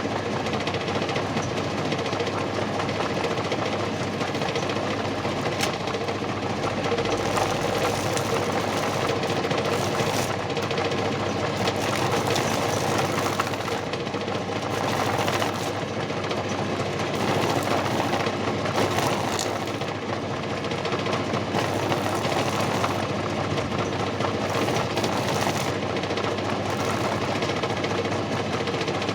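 Homemade chicken feather plucker, built from a used washing machine and PVC, running steadily with a continuous motor hum and rattle.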